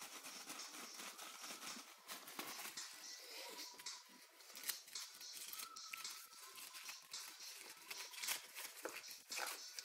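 Faint, irregular crinkling and crackling of a small folded paper slip being unfolded by hand.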